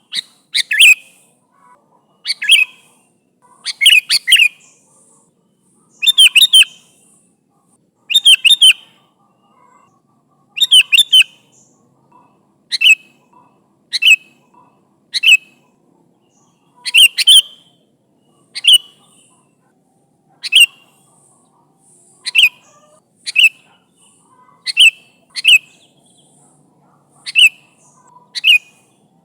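Sooty-headed bulbul (kutilang) calling repeatedly to others of its kind: short, sharp chirping calls about every one to two seconds, many in quick clusters of two or three notes.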